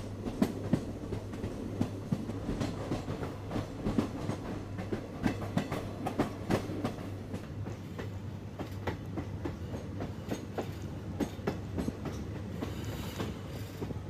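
Goa Express passenger train running, heard from aboard: a steady low rumble with irregular clicks and clacks of the wheels over the rail joints.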